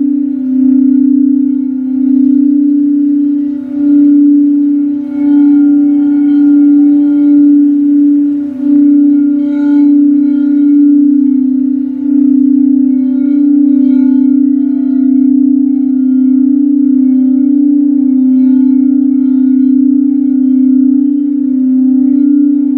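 A Tibetan singing bowl sung by circling its rim: one steady low ringing tone with fainter overtones above it. It wavers and swells in loudness, with several brief dips in the first half before it settles into a steadier hum.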